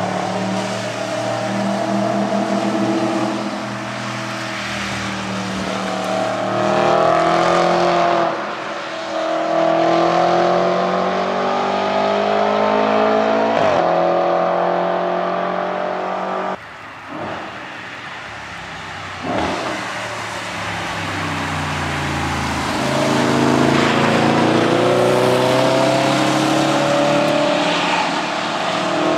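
Audi RS5's 4.2-litre V8 through a full Capristo exhaust, revving up hard in repeated rising sweeps and then easing off as the car comes past, with breaks between passes.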